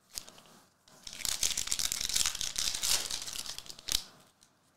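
Foil trading-card pack wrapper being torn open, crackling and crinkling for about two and a half seconds, with a sharper crack about four seconds in.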